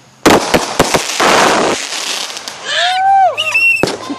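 Fireworks going off: a sudden run of loud, sharp bangs followed by about a second and a half of dense crackling. Near the end a child gives a few high, excited squeals.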